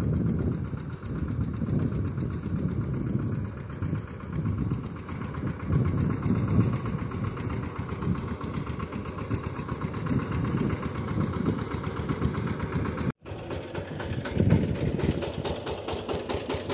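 VST Shakti 130 DI power tiller's single-cylinder diesel engine running steadily under load as it pulls an inter-cultivator through crop rows, with a rapid, even beat of firing pulses. About 13 seconds in, the sound cuts out for a moment and comes back closer and brighter.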